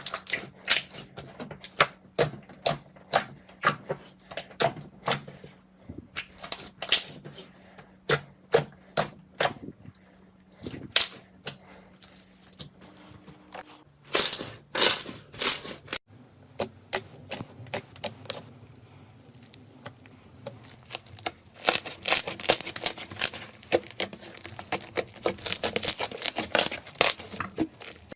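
Slime being pressed and poked by hand, giving a string of sharp pops and crackles, about two a second, thickening into a quick flurry near the end.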